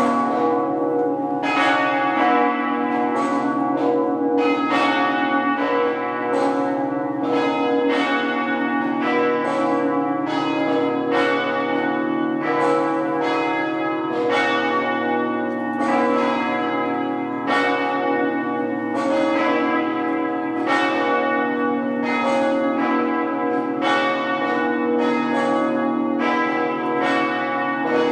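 Cathedral church bells pealing half-muffled, with a steady stream of overlapping strokes, about one to two a second, some ringing out clearly and others dulled. Half-muffled ringing is a sign of mourning.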